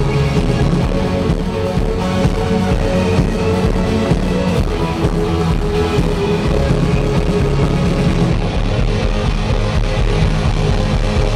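Rock band playing live through an arena PA, loud and steady, with a driving electronic beat under guitar, heard from within the crowd.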